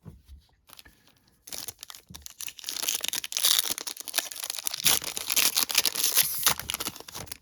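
Foil trading-card pack wrapper being torn open and crinkled by hand: a few faint crackles, then a long run of dense tearing and crinkling from about a second and a half in, stopping abruptly at the end.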